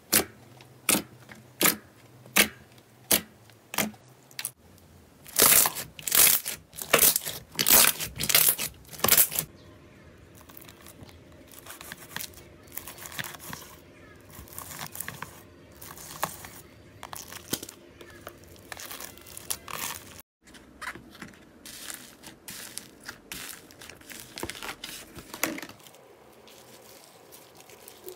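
Slime being played with by hand: a steady run of sharp pops as fingers press into a sheet of clear slime, then a few seconds of louder wet bursts. After that comes softer continuous fine crackling as a knife cuts through crunchy bead-filled slime.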